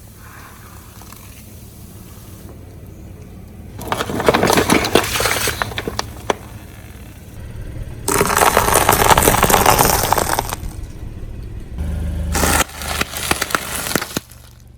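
Car tyres rolling over and crushing brittle objects: three bursts of crackling and breaking, the middle one the longest, with quieter gaps between.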